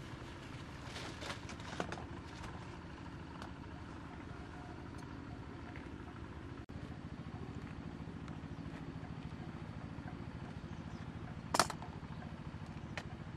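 A small engine running steadily at an even pitch, with a brief break about halfway and scattered light clicks; one sharp, loud click near the end.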